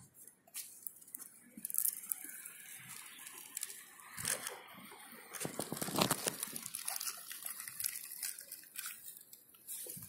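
Irregular rustling and crinkling with scattered soft clicks, louder in short spells about two, four and six seconds in.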